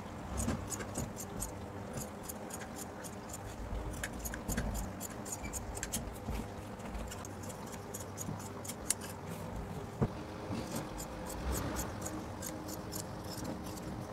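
Large steel tailor's shears cutting through thick denim: a long series of crisp snips, a few a second, with short pauses as the blades are repositioned along the cut.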